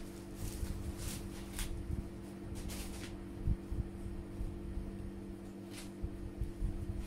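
Ears of corn being husked by hand: the green husk leaves are pulled and torn off in about six short tearing rips, with a low thump about halfway through. A steady low hum runs underneath.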